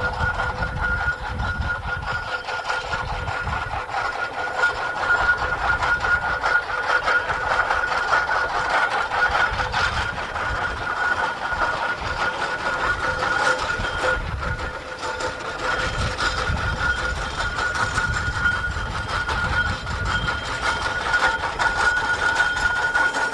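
Fowell steam traction engine working along a road, its exhaust beating and its machinery clanking in an uneven low pulse. It grows a little louder as the engine draws near.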